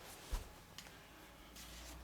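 Faint handling of a thick phone book being turned around: a soft low thump about a third of a second in, with a few light clicks and rustles.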